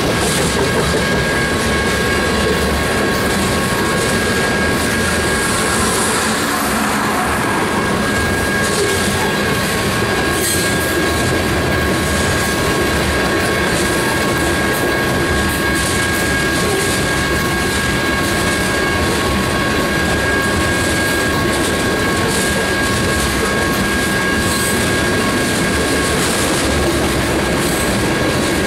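Two-bay covered hopper cars of a freight train rolling past, a steady rumble of steel wheels on rail with scattered clicking over the rail joints. A thin high-pitched squeal holds steady underneath.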